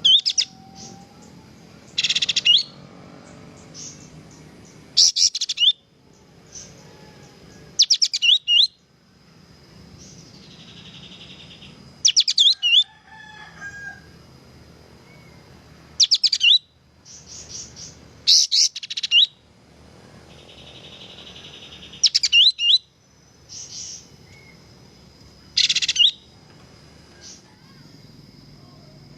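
Kapas tembak bulbul singing loudly in short, sharp repeated phrases of quick downward-sweeping whistled notes, one burst every two to three seconds.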